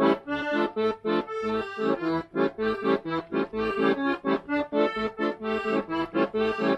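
Background instrumental music: a lively tune in short, evenly pulsed notes, about three to four a second.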